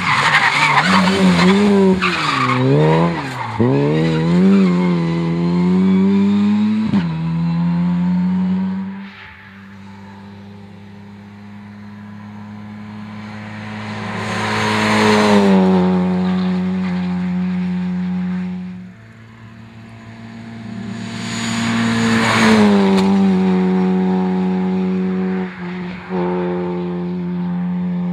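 Opel Adam Cup rally car's engine worked hard. For the first seven seconds the pitch swoops quickly up and down through gear changes and lifts off the throttle. Then it holds a steady high note that swells and fades twice as the car passes.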